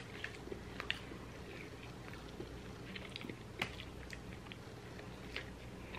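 Quiet close-up chewing and biting into a bacon cheeseburger, with scattered soft clicks of mouth and food sounds, one more distinct about halfway through.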